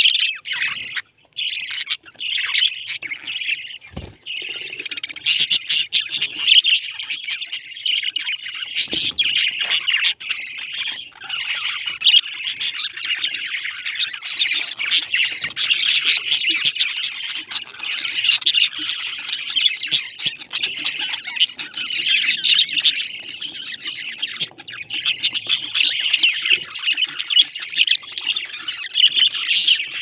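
A flock of caged budgerigars chattering and warbling, many short overlapping chirps and squawks at once.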